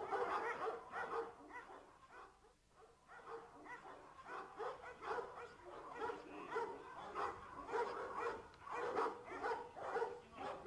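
Presa Canario barking over and over at a decoy during protection training, a rapid run of barks with a short lull about two seconds in.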